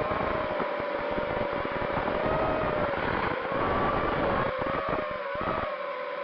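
Wizard X220S FPV quadcopter's brushless motors whining in flight, the whine wavering in pitch with throttle, over wind and propeller-wash rumble on the onboard camera's microphone. The rumble breaks up and drops out about five and a half seconds in, leaving the motor whine.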